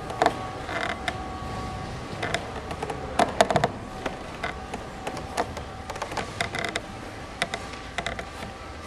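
Wooden boards covering the steps creaking under kneeling pilgrims as they shift their weight and move up on their knees: a run of short, irregular creaks, the loudest cluster about three and a half seconds in.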